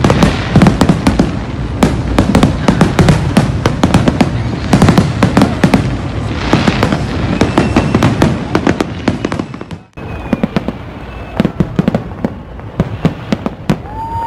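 Large aerial fireworks display: a dense, rapid barrage of bangs and crackling bursts that breaks off suddenly about ten seconds in, then goes on as sparser, separate bangs.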